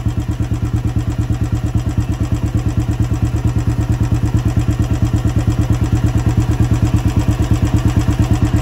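Royal Enfield Bullet's single-cylinder engine idling steadily: an even beat of about ten exhaust pulses a second.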